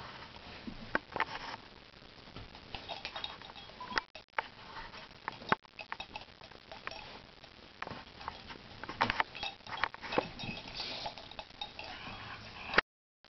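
Two Basenjis chewing and tearing at a stuffed plush monkey toy: irregular snuffling, rustling of fabric and stuffing, and sharp little clicks.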